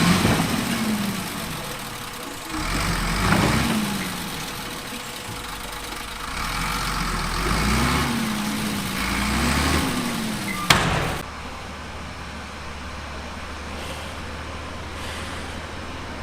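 Diesel engine of heavy earthmoving machinery revving up and falling back in repeated surges, as under working load. A sharp knock comes about eleven seconds in, then the sound changes abruptly to a steadier, quieter low engine hum.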